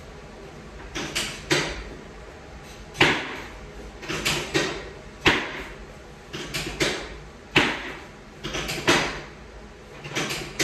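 Chiropractic drop table's pelvic section dropping with a sharp clack, the loudest about every two seconds, with clusters of smaller knocks in between.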